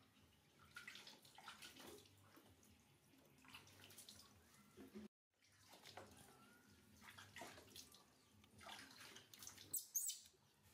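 Faint splashing and dripping of water in a plastic baby tub as a baby monkey is washed by hand, in short spells. The loudest splashes come near the end, as water streams off the lifted monkey into the tub.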